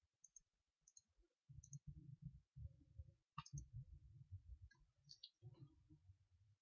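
Near silence with faint, scattered clicks, about eight in all, over a low rumble that comes in about one and a half seconds in.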